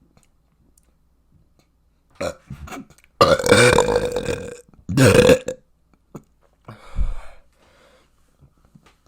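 A person burping loudly: one long burp of about a second and a half with a steady deep pitch, then at once a shorter burp. A short sound comes just before them, and a fainter, deeper sound follows a moment later.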